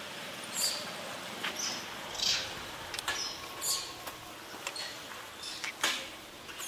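Forest ambience: scattered short, high chirps and squeaks, about one every half second to second, with a few sharp clicks.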